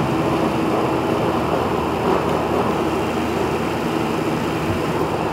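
Steady mechanical hum with a low drone, even throughout and without distinct clicks or strokes.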